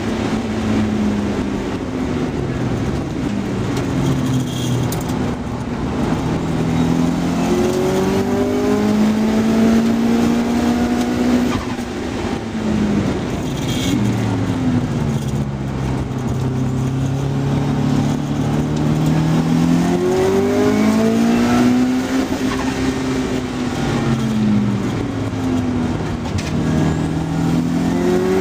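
Car engine heard onboard, driven hard around a race circuit. Its note climbs under acceleration, drops suddenly at each gear change and falls away when slowing for corners, over and over.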